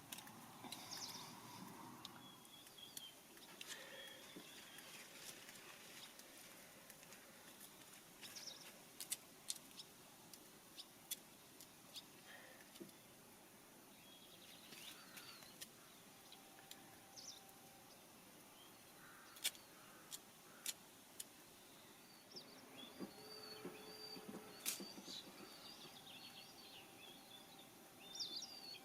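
Faint garden ambience with small birds chirping now and then, and a scattering of sharp light clicks and taps.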